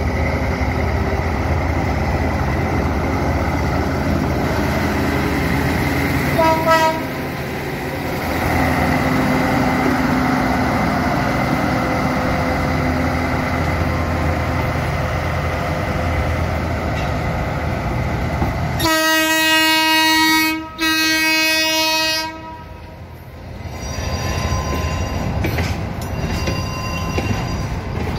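GE No. 108 diesel locomotive running under load as it hauls container flatcars past. There is a short horn toot about seven seconds in, then a long horn blast of about three and a half seconds with a brief break partway, near the two-thirds mark. After that the flatcars roll by with wheel clatter.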